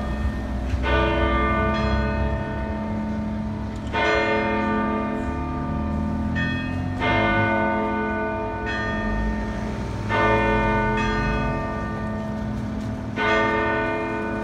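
Church bells tolling from a church tower: a heavy stroke about every three seconds, each ringing on into the next, with lighter strokes between.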